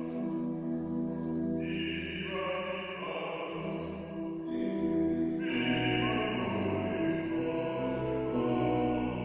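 Live music at a concert rehearsal: slow, long-held notes that move to a new chord every second or two.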